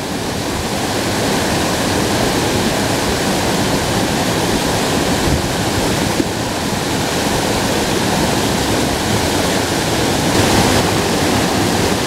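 Creek water pouring over a small waterfall and rushing past in a strong current: a loud, steady wash of falling water.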